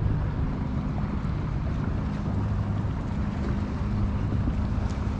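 Wind buffeting the microphone and water lapping at a kayak, a steady low rumble with a faint low hum under it.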